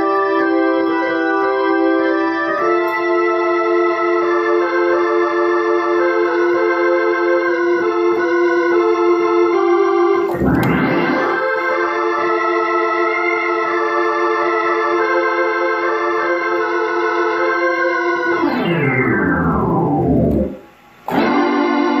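Hammond C-3 tonewheel organ played through a Leslie 147 rotating speaker, holding sustained chords. About ten seconds in, the whole organ's pitch swoops up from very low. Near the end the pitch slides slowly downward, the sound drops out for a moment, and a new chord comes in.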